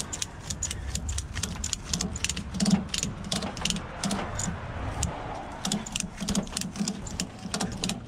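Ratchet tie-down strap being cranked tight to hold down an ATV, its ratchet clicking in quick, uneven runs of sharp clicks with dull knocks among them.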